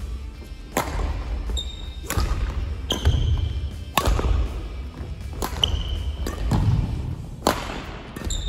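Badminton rally with several sharp racket hits on the shuttlecock, roughly a second apart. Short high squeaks of court shoes on the floor and thuds of footwork follow several of the hits.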